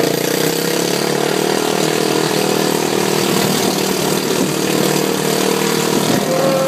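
ATV engine running steadily while riding along a road.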